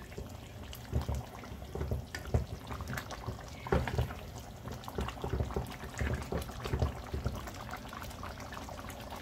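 A ladle stirring a pot of chunky tomato chicken stew with potatoes: the thick sauce sloshing, with irregular soft knocks and scrapes of the ladle against the pot.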